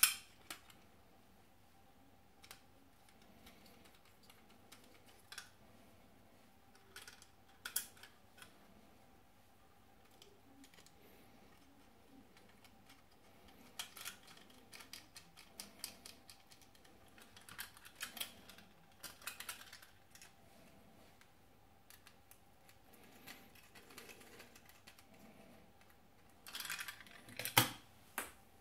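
Small scattered clicks and ticks of metal standoffs being handled and screwed onto a Raspberry Pi circuit board by hand, with a louder clatter and knock near the end.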